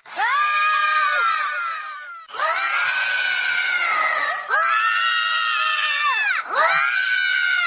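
Cartoon character screams voiced by actors: about four long, high-pitched screams one after another, each held for roughly two seconds and dropping in pitch as it breaks off.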